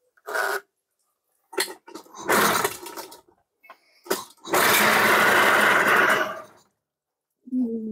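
Pull-starting a 1999 Tohatsu 3.5hp two-stroke outboard: a few short pulls on the recoil starter, then the engine catches and runs for about two seconds before dying. It is struggling to start on fresh fuel.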